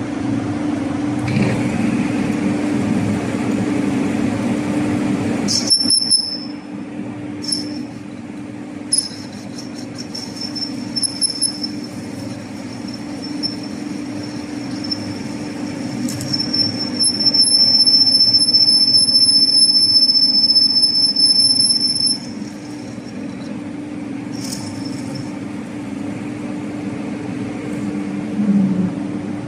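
Lathe taking a facing cut across a metal flange: the cutting tool squeals at a high, steady pitch, starting and stopping several times and loudest for about five seconds past the middle, over the steady hum of the running lathe.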